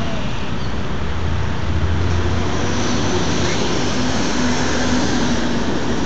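Steady urban road traffic: a continuous wash of passing cars, with a low engine rumble swelling about a second or two in.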